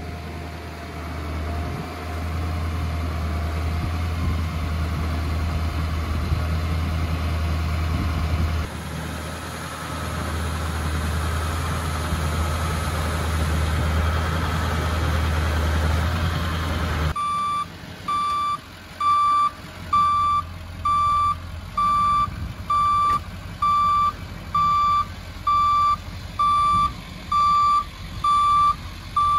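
Ford F-550 bucket truck's engine running steadily with a faint whine over it; more than halfway through this gives way to a back-up alarm beeping about once a second, a dozen times.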